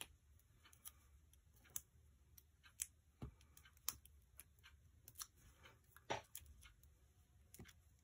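Near silence with faint, irregular light clicks and taps: small cardstock pieces being handled and pressed down onto a card.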